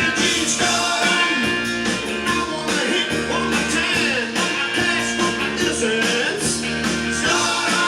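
A song with guitar and singing, played from a vinyl record on a Realistic LAB-400 direct-drive turntable.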